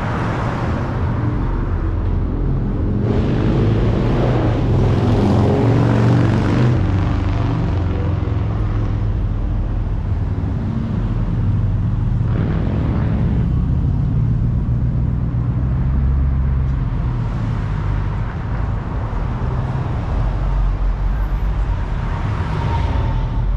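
Car engines running as cars cruise along the street, a steady low rumble that swells for a few seconds near the start.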